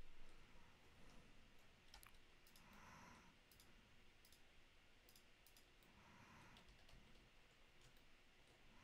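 Near silence with faint, scattered clicks from a computer mouse and keyboard in use.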